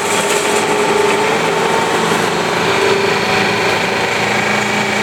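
Rong Fu RF 19V 20-inch variable-speed drill press running steadily under its inverter drive, its spindle at a little over 2,000 RPM. It is a continuous machine hum with several steady whining tones.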